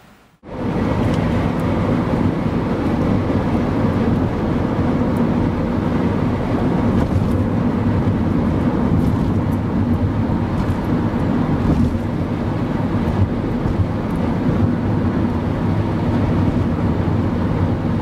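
Steady road and engine noise of a car driving at highway speed, heard inside the cabin. It starts abruptly about half a second in and holds even throughout.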